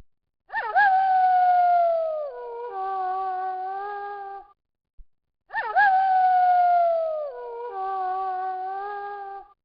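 Wolf howling, the same howl twice: each starts with a quick upward swoop, holds a long note that slowly falls, then drops to a lower steady note before stopping.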